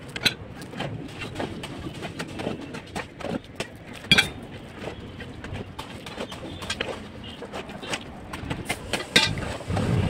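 A shovel scraping and scooping through a pile of stone chips and sand on a concrete floor, with irregular gravelly crunches and scrapes, a sharp one about four seconds in. Near the end a low rumble builds.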